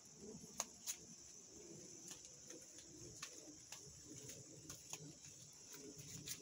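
Faint outdoor garden ambience: a steady high hiss with a low murmur underneath and a scattering of soft clicks, the two loudest about a second in.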